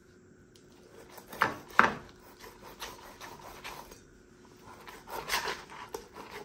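Chef's knife sawing diagonal incisions through the scaly skin and flesh of a whole tilapia: a run of short scraping strokes, with two sharper, louder ones about a second and a half in.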